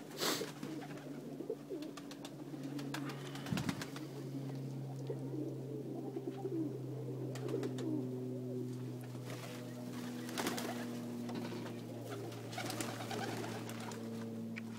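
A flock of domestic pigeons, Macedonian dunek among them, cooing continuously in many overlapping low coos, with a few short sharp clicks.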